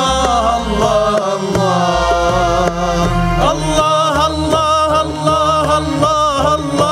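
Moroccan Sufi devotional song: a man singing a long, ornamented melodic line with wavering pitch over instrumental accompaniment and a regular percussion beat.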